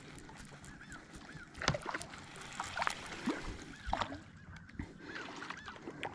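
Water splashing in several sharp, separate splashes, with a bird's short chirp repeating over and over behind it.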